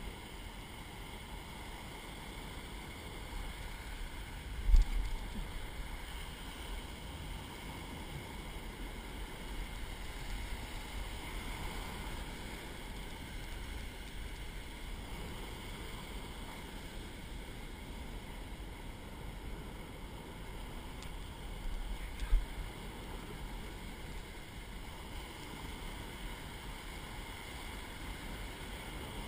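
Steady wash of surf breaking and running up the beach, with wind on the microphone. Two brief low thumps come through, one about five seconds in and another some seventeen seconds later.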